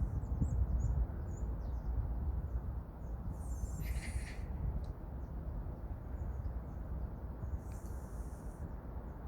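Outdoor ambience: a steady low rumble with birds calling, one call about three and a half seconds in and another near eight seconds, and faint short chirps between.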